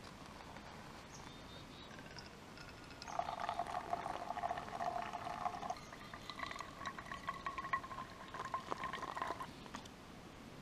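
Hot water poured from a camping pot into a paper pour-over coffee filter, the liquid ringing in the cup below as it fills. There are two pours of a few seconds each, starting about three seconds in and again about six seconds in.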